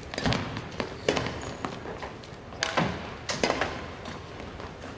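Badminton rackets hitting a shuttlecock: a string of sharp smacks at irregular intervals during rallies, over the general noise of a sports hall.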